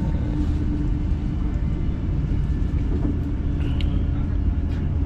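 Steady low rumble of a high-speed train heard from inside the passenger cabin while the train is moving, with a steady hum running through it.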